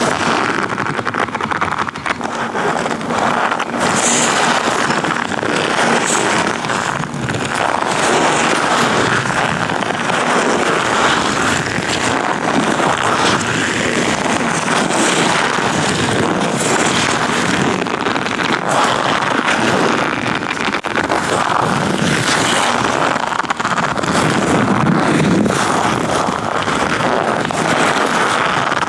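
Latex-gloved hands rubbing and gripping a microphone: continuous close rubbing and rustling with many small clicks.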